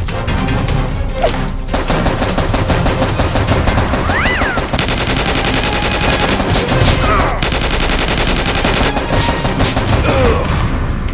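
Rapid automatic gunfire sound effects, many shots in quick succession, starting about two seconds in, over background music.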